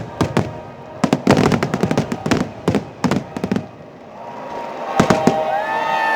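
Fireworks finale: a rapid barrage of overlapping bangs and crackles for about three and a half seconds, then a brief lull. Near the end come sustained pitched tones, one rising and bending like a whistle, with more scattered bangs.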